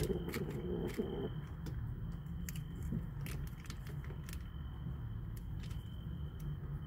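Kittens chewing food, with scattered small clicks and a sharp knock at the very start, under a faint steady high whine.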